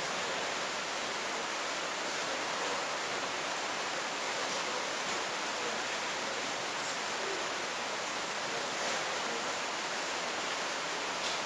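Steady, even hiss of room noise, with a few faint scratches of a dry-erase marker writing on a whiteboard.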